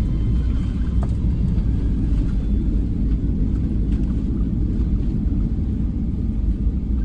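Airbus airliner heard from inside the cabin while rolling fast along the runway: a steady, loud, low rumble of engines and wheels on the runway surface.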